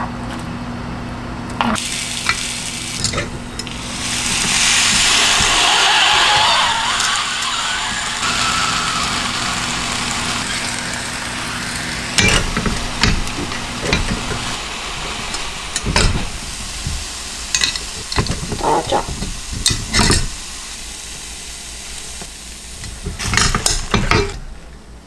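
Oat batter sizzling in a hot pan, the sizzle swelling for a few seconds about four seconds in. A steady hum stops about halfway through, and utensils click against the pan now and then.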